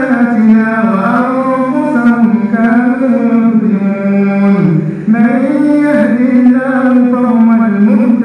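An imam reciting the Quran aloud in a melodic chant during congregational prayer. A single male voice draws out long, ornamented held notes, with a short break for breath about five seconds in.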